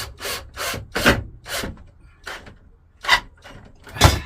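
Short rasping strokes on wood, about two or three a second at first and then slower, with one louder stroke near the end, as a length of wood is worked into place on a wall.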